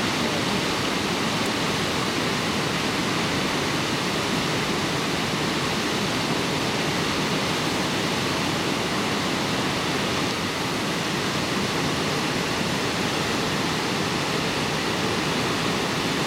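Steady rush of river water pouring over a weir.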